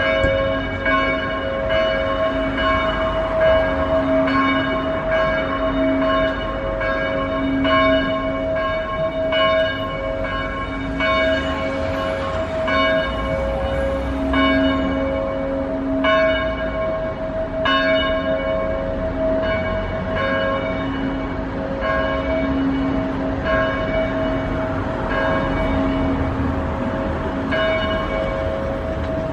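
Church bells of the Brides-les-Bains church ringing continuously. The strokes come evenly, a little under a second apart, and each one rings on into the next.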